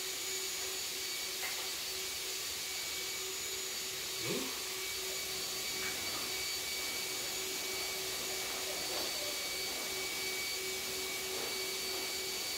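Steady whir of an electric motor, an even hiss with a constant hum and a couple of high whining tones.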